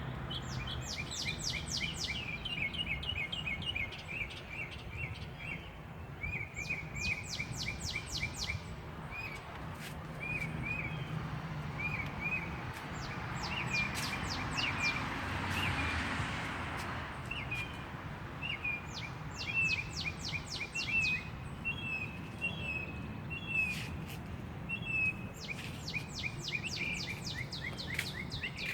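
Songbird singing: short bursts of rapid high notes repeated every few seconds, with quick chirps in between, over a steady low hum. A wash of noise swells briefly in the middle.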